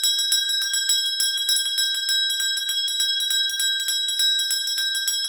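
Alarm bell ringing continuously with rapid, evenly repeated strikes and a steady high ring, signalling that a countdown timer has run out.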